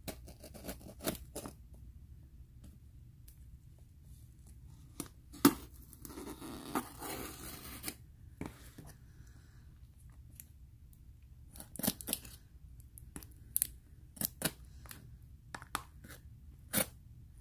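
Packing tape on a cardboard box being slit and torn open with a pointed metal tool: scattered scrapes, clicks and taps, with a longer ripping stretch from about six to eight seconds in.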